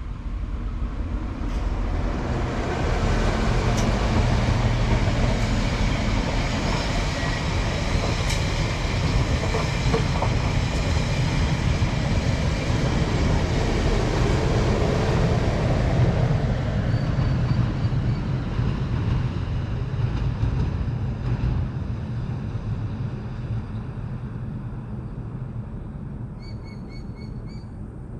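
Queensland Rail diesel tilt train (Spirit of Queensland) passing by: a low rumble that builds over the first few seconds, holds, then fades away over the last ten seconds. A few short bird calls come in near the end.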